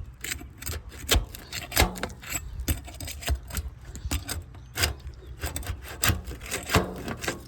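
Scraping and irregular knocking as a Lomanco Slant Back 750 metal box roof vent is tugged and worked against the asphalt shingles around it; the vent will not just slide out.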